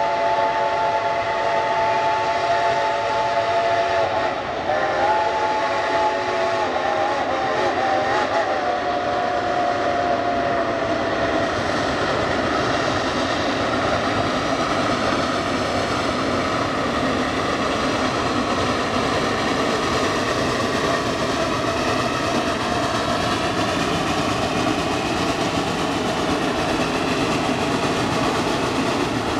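Steam whistle of a geared steam locomotive blowing one long chord for about the first ten seconds, its pitch wavering partway through. Then the locomotive's steady working noise as it climbs toward the listener under heavy steam.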